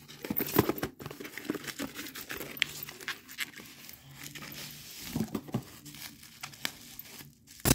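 Cardboard packaging and bubble wrap being handled and torn open: irregular rustling, crinkling and tearing, with a sharp knock right at the end.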